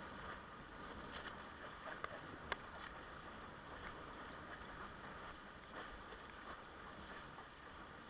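Water washing and splashing against a windsurf board, with a few sharp knocks, the loudest about two and a half seconds in.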